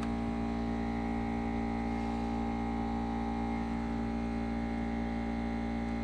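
A steady hum with many even overtones, unchanging in pitch and level.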